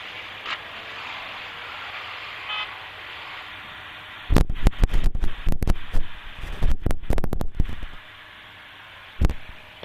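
Steady rushing noise with a short car-horn toot about two and a half seconds in, then loud, irregular gusts of wind buffeting the microphone from about four seconds for several seconds, and one more short gust near the end.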